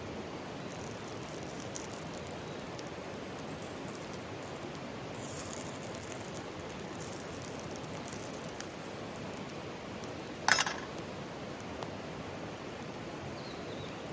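Mountain stream running steadily, with a short, sharp double knock about ten and a half seconds in.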